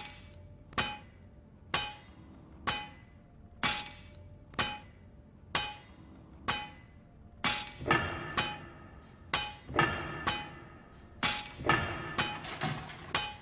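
Blacksmith's hammer striking hot metal on an anvil, each blow ringing, about once a second. From about halfway the blows come faster and overlap one another.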